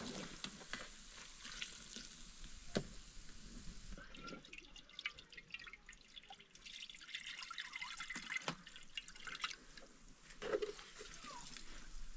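Faint liquid dripping and trickling, with irregular small clicks and taps.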